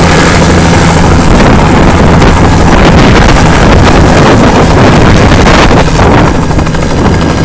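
Bell 206B JetRanger III helicopter lifting off and hovering close by: its turbine engine and two-blade main rotor running loud and steady at takeoff power, with wind from the rotor buffeting the microphone.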